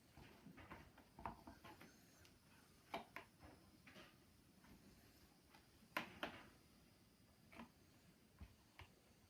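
Faint scattered clicks and light scrapes of a long screwdriver working down through a shotgun's stock, feeling for the slot of the long stock screw; the sharpest click comes about six seconds in.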